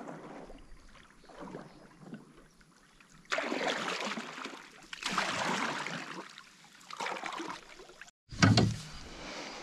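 Canoe paddle strokes in the water: a few faint swishes, then two louder drawn-out swishes about three and five seconds in. Near the end, after a brief break, a loud thump.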